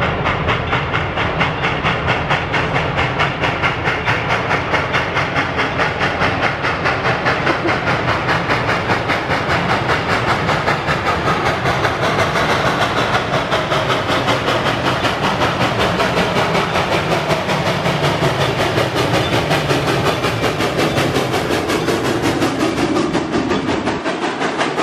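Reading & Northern steam locomotive working hard as it pulls out, its exhaust chuffing in a rapid, even rhythm over a steady steam hiss.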